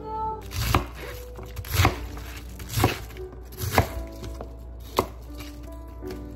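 Chef's knife chopping cabbage on a wooden cutting board: five separate knocks of the blade against the board, about one a second.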